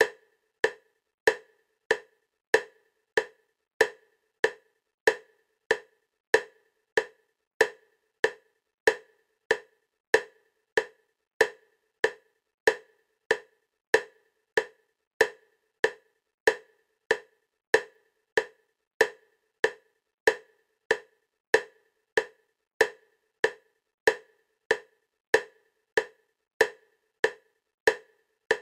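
EMDR bilateral stimulation clicks: short, sharp, wood-block-like clicks at a steady 96 per minute, alternating side to side between left and right.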